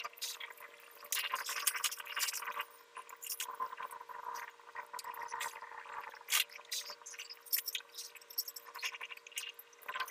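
Hands working white PP-R plastic pipe and elbow fittings: irregular scraping, rubbing, clicks and light knocks of plastic, over a faint steady hum.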